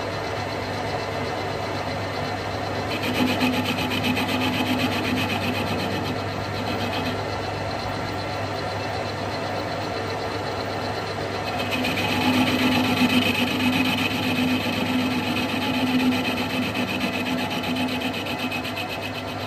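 A hand-turned muzzle cutter rasps against the rifle's muzzle in two spells of fast, even scraping: one about three seconds in, and a longer one from about twelve seconds. A steady low hum runs under it. This is the muzzle face being trued flat, and the cutter is not yet biting all the way round.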